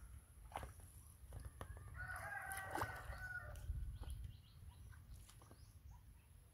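A drawn-out animal call, about two seconds in, lasting about a second and a half at a steady pitch, over a low outdoor rumble and a few small clicks.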